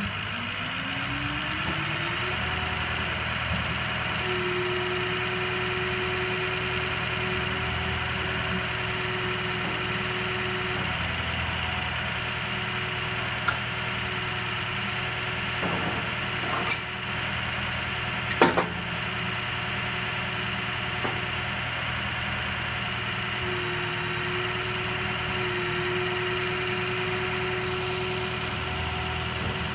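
Boom truck's engine running to drive the crane hydraulics, with a whine that rises in pitch over the first couple of seconds and then holds steady while the boom is raised. Three sharp clanks come about halfway through.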